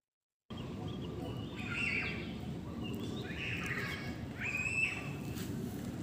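Outdoor ambience of birds chirping in short, repeated calls over a steady low background rumble, after half a second of dead silence at the very start. A single sharp click comes about five seconds in.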